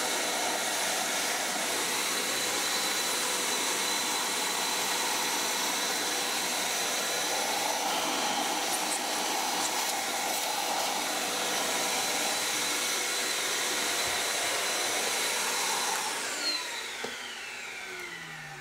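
Vacuum cleaner running steadily, its hose nozzle sucking soot out of the smokebox and tubes of a coal-fired model steam locomotive. About sixteen seconds in, the motor winds down with a falling whine.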